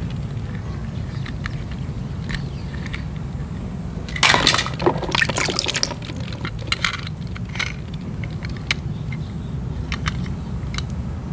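Water splashing and sloshing in a plastic basin of toy balls as hands reach in and lift out a wet toy car, loudest about four seconds in, with scattered light clicks of plastic toys being handled over a steady low hum.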